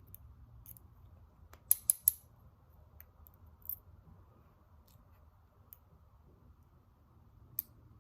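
Sharp small metallic clicks and taps as the pins and springs are worked out of the padlock's cylinder. There are three loud clicks close together about two seconds in, with lighter scattered ticks around them.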